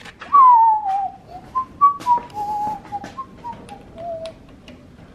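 A man whistling a short, wandering tune that starts high and falls, then moves up and down in separate notes, with a few light clicks in the background.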